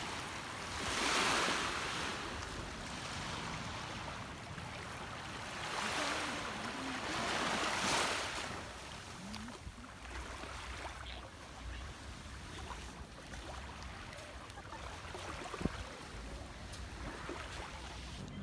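Small waves washing in on a sandy seashore, a soft rushing that swells twice in the first half and then settles lower.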